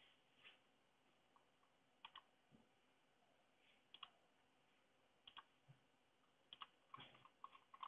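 Faint computer mouse clicks, one every second or two, with a quicker run of clicks near the end.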